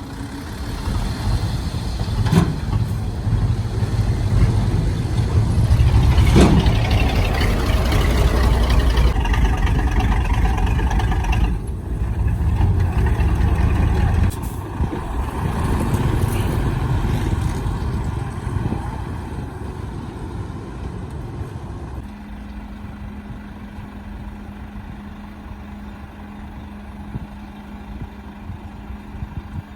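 Heavy diesel engine of a construction vehicle working hard under load, with a couple of sharp knocks. About two-thirds of the way through it drops to a quieter, steady hum.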